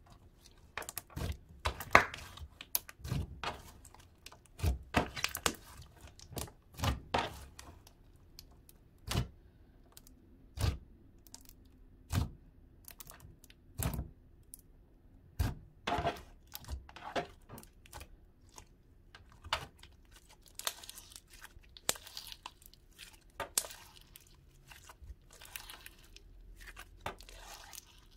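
Thick, creamy slime being squished and poked by fingers, giving a string of short wet clicks and pops. In the last third there are softer, hissing tearing sounds as the slime is stretched out.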